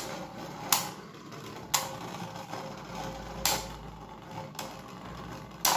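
Two Beyblade Burst spinning tops, one a Valtryek V2, spinning on a hard tabletop arena with a faint whir. They clack sharply against each other about five times, and the last hit near the end is the loudest.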